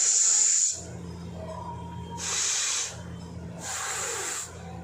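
Air forced out hard through the nose in three sharp hissing blasts, each under a second long, about a second and a half apart; the first is the loudest.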